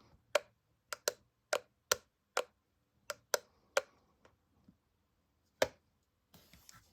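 Apple MagSafe Battery Pack clicking: about a dozen sharp, irregularly spaced clicks, with the loudest about two thirds of the way in. The clicking is treated as a defect of the pack. A brief rustle of handling comes near the end.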